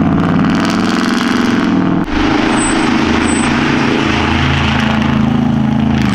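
Lifted truck's engine and loud exhaust running with a steady drone. The sound changes abruptly about two seconds in to another steady engine drone.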